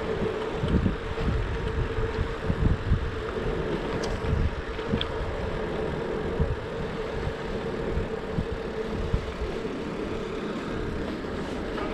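Wind buffeting a GoPro Hero 7 Black's microphone while riding, in uneven low gusts, over a steady hum and road hiss.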